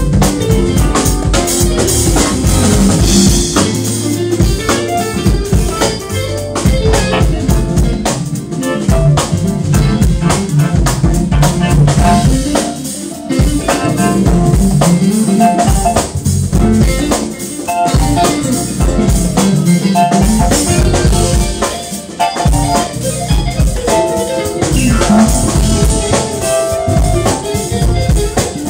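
Live jazz band playing: drum kit and congas keeping a steady beat under electric bass, electric guitar, keyboards and saxophone.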